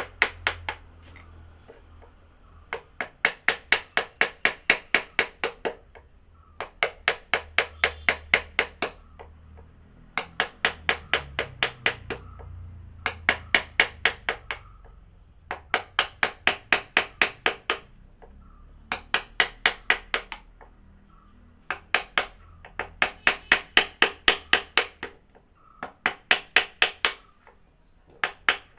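Rapid hammer strikes on wood, about six a second, in bursts of one to three seconds separated by short pauses.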